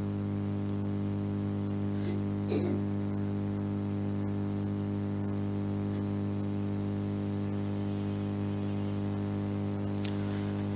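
Steady electrical hum with several even overtones, unchanging throughout; a faint brief sound about two and a half seconds in.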